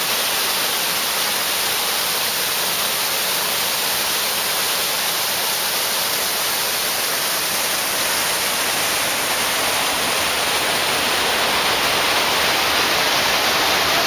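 A steady rush of water from a wall fountain's falling curtain splashing into its pool.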